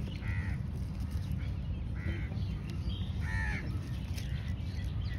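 A bird giving short, harsh caw-like calls, about four of them a second or so apart, over a steady low rumble.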